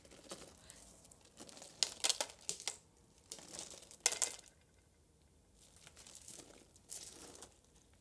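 Purple plastic padded mailer bag crinkling as it is handled and turned, in several short rustles with quiet gaps between, the strongest about two and four seconds in.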